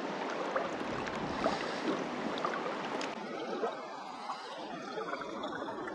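River water running over rocks: a steady babble flecked with small splashes and gurgles.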